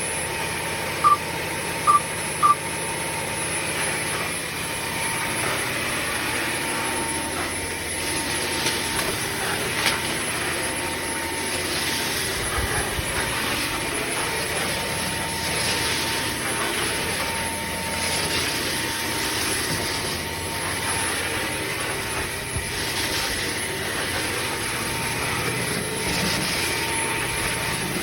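Bissell CrossWave OmniForce cordless wet-dry vacuum running with a steady whine, with three short electronic beeps in the first few seconds. Its hiss swells and fades every few seconds as it is pushed back and forth over the floor.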